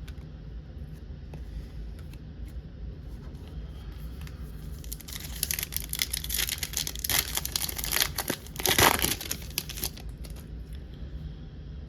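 Wrapper of a trading-card pack being torn open and crinkled by hand: quiet at first, then a run of crackling from about halfway through that peaks in one loud rip and stops a couple of seconds before the end.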